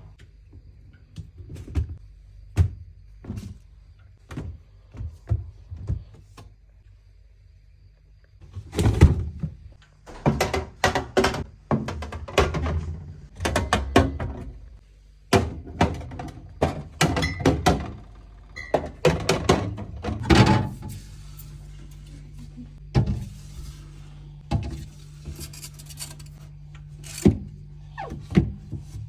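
Household items and plastic containers knocked and set down while being put away: an uneven run of clunks and clicks, busiest through the middle, over a steady low hum.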